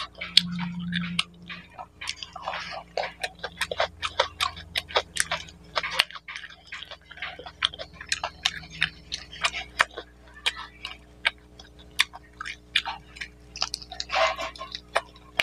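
Close-up eating sounds of a man chewing mutton curry and rice by hand: a fast, uneven run of wet lip smacks and mouth clicks, several a second.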